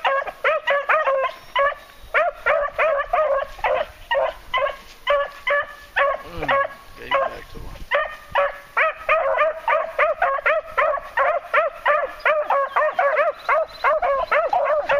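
Two beagles baying on a scent trail, a fast run of short pitched barks, several a second, with brief pauses between bursts.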